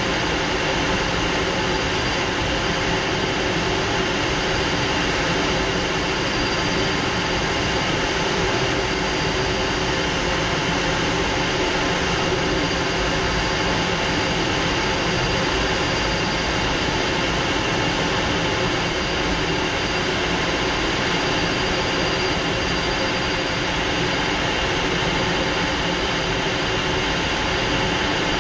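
Fouga Magister's twin Turbomeca Marboré turbojets running steadily in flight, heard from inside the cockpit: a constant rush of noise with a thin, steady high whine on top.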